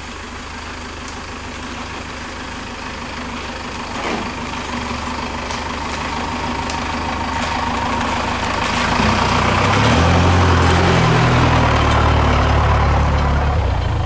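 Pickup truck engine running under a steady rushing noise, growing louder and deeper about nine seconds in.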